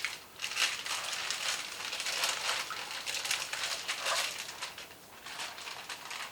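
Plastic bag of marinating steaks crinkling and crackling as it is handled, in quick irregular rustles that ease off briefly near the end.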